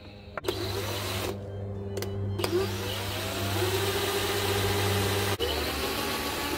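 Cordless drill spinning up and drilling through thin, flimsy plastic, stopping and restarting a few times, with a rising whine at each start.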